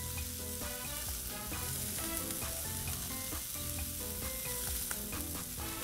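Asparagus frying in butter on a Blackstone flat-top griddle: a steady sizzle.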